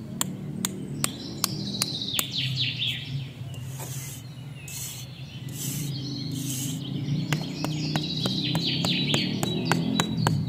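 Small birds chirping in quick falling trills, over a regular ticking of about two to three clicks a second and a low steady hum. A few short hissy swishes come in around the middle.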